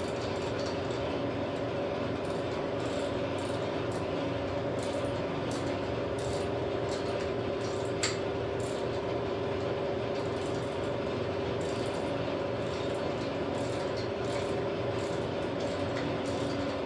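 Steady hum of running shop machinery, overlaid with light metallic clicks and ticks as a lathe drawbar is spun in by hand; one sharper click about halfway.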